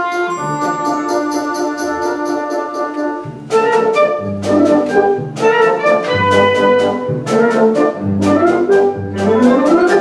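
Concert band of brass, woodwinds and percussion playing: held, softer chords for about three and a half seconds, then the full band comes in louder with short, accented chords over a repeated low bass note, and a rising run near the end.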